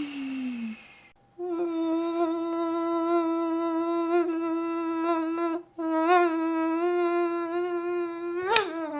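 A man imitating a mosquito's whine with his voice: a steady, thin buzzing hum held in two long stretches with a brief break, wavering slightly, and ending in a quick swoop up and back down. In the first second, the falling pitch of his vacuum cleaner imitation winding down.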